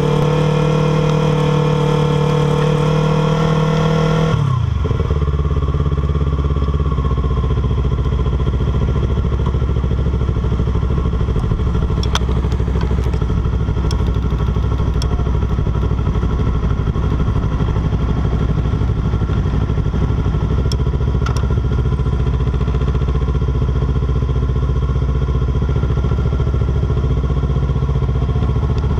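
Motorcycle engine running at higher revs for the first four seconds or so, then dropping quickly to a steady low speed and running evenly. A few faint sharp clicks come in along the way.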